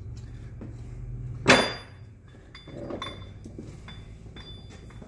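Steel tool parts clinking as they are handled: one sharp, ringing metal clank about a second and a half in, followed by a few lighter clinks.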